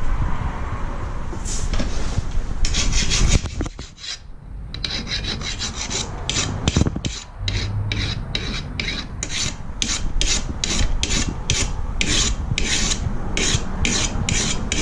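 Hand file rasping back and forth on a steel rotary lawn mower blade, sharpening its dull cutting edge. The strokes start about three seconds in, pause briefly, then run on in a steady rhythm of about two a second.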